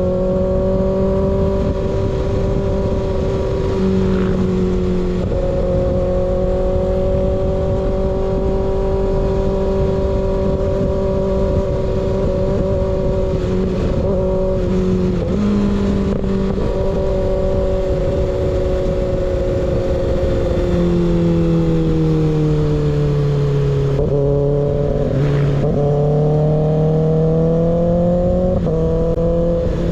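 Kawasaki ZX6R inline-four through an unbaffled M4 slip-on exhaust, running at steady revs under a steady rush of road noise. About two-thirds of the way in the revs drop, then climb back up near the end.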